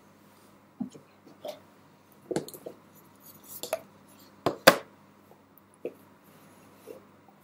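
Small objects being handled and set down, a cup and a small cardboard box among them: a scattering of light knocks and clicks, the two loudest close together about four and a half seconds in.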